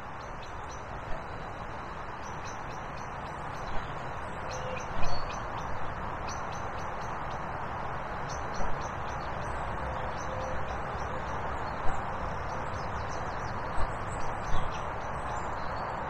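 Small birds chirping and twittering over a steady outdoor hiss, with a handful of brief bumps scattered through.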